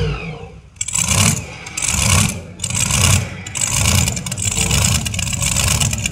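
A modified pulling tractor's engines cut off sharply from a loud run, then surge in short, uneven revs about once a second. A spectator takes this for the center motor not running quite right.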